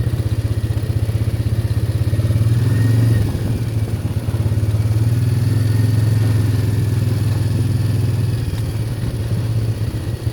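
ATV engine running while being ridden, a steady low drone. It eases off a little about three seconds in and picks up again.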